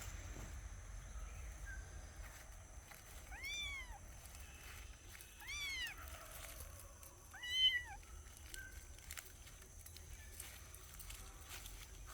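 A cat meowing three times, a couple of seconds apart, each meow rising and then falling in pitch; the third is the loudest.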